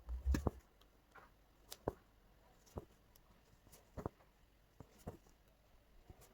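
Embroidery needle punching through fabric stretched taut in a hoop, a light tap with each stitch, irregular, about once a second, after a louder double knock at the start.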